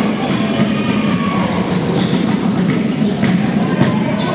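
Live basketball game in a gymnasium: the ball bouncing on the hardwood and players moving on the court, with short sharp knocks over a steady murmur of the crowd.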